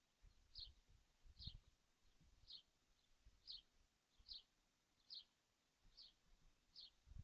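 A bird's faint, short chirp falling in pitch, repeated about once a second, with soft low thumps underneath.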